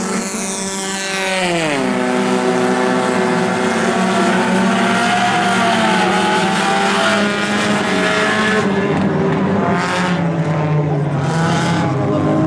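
Compact-car race engines running as the cars circle a dirt oval. About a second in, one engine's pitch falls steeply, then the engines hold fairly steady with small rises and falls. A few short bursts of hiss come near the end.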